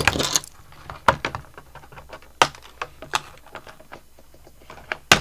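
Plastic packaging being handled while small doll accessories are unwrapped: scattered sharp clicks and short crinkling rustles at an irregular pace.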